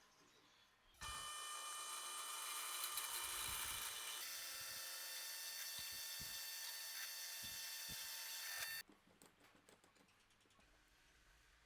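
Electric drill running with a steady high whine for about eight seconds, starting about a second in and cutting off suddenly near the end; its sound shifts a little about halfway through.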